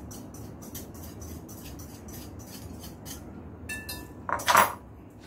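Hand-held pepper mill being worked over a mixing bowl: a run of short dry clicks. Near the end comes a ringing ceramic clink, then a louder brief clatter of dishes.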